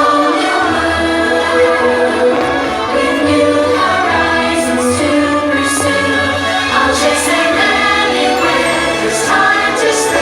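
Fireworks-show soundtrack: orchestral music with a choir singing long held notes.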